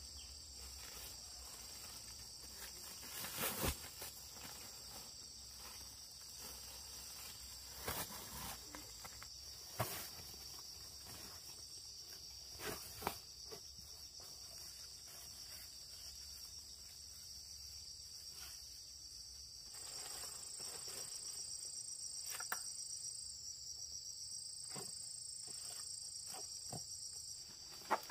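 A steady chorus of insects calling, with a second, higher insect joining about two-thirds of the way in. A few short knocks and clicks are scattered through it.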